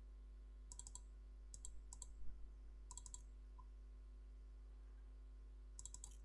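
Computer mouse button clicking in five short groups of quick double-clicks spread over several seconds, over a faint steady low hum.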